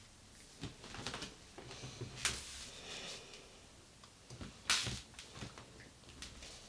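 Faint rustling and shuffling of a person moving and posing in a small room, with a few soft swishes. The loudest come about two seconds in and just under five seconds in.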